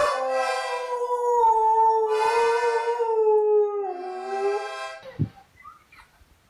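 A dog howling along with held notes squeezed on a child's toy accordion. The music and howling stop about five seconds in, followed by a single thump.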